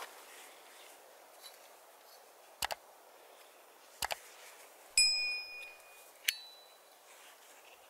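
Sound effects of a subscribe-button animation: two sharp double mouse clicks, then a loud click with a short bell-like ding and a second, shorter ding.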